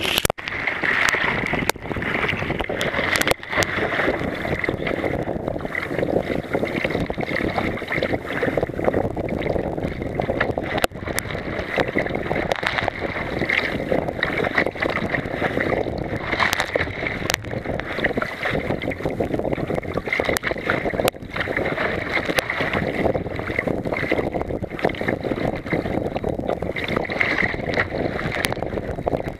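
Choppy seas washing and splashing over the deck of a Wilderness Systems Tempest 170 sea kayak, a steady loud rush of water. Spray and drops strike close to the microphone in frequent sharp taps, with some wind on the microphone.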